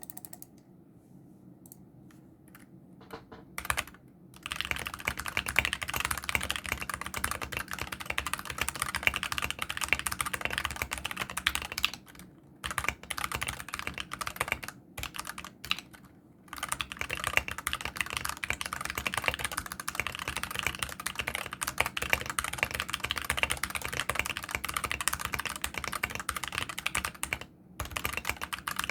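Mechanical keyboard with dry, unlubricated Gateron optical brown switches, their tactile bumps removed so they act as linears, being typed on. A few separate key presses at first, then fast continuous typing from about four seconds in, broken by short pauses near the middle and near the end.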